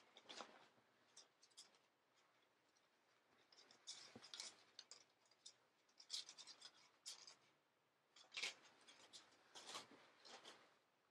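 Faint, intermittent rustling and rubbing of a cotton Champion hoodie being unfolded, shaken out and handled, in short scratchy bursts with quiet gaps between.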